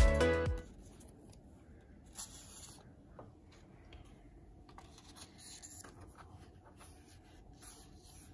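Faint rustling and scraping of a paper sticky note being handled and rubbed down onto a laptop's palm rest, in short scattered strokes.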